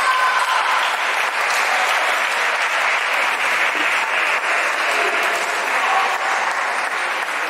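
Steady din of a busy table tennis hall: the dense patter of many ping-pong balls striking tables and paddles on the surrounding tables, with faint voices mixed in.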